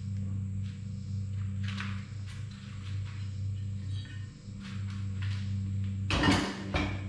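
Hand tools and bolts clinking and knocking against the metal of a tractor engine being taken apart: a few light clinks, then a louder clatter about six seconds in. A steady low hum runs underneath.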